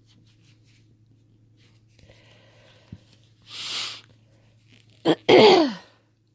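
A woman with a head cold sneezes. A sharp, noisy in-breath comes about three and a half seconds in, then a brief catch, and a second later a loud sneeze whose voice falls in pitch.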